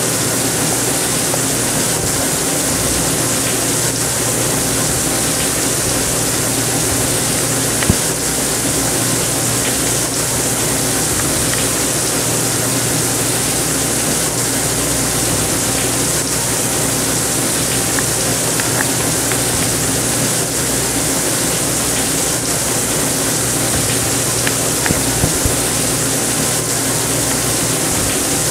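Steady rushing and bubbling of water aerated by a fish-tank air pump, with a low steady hum under it.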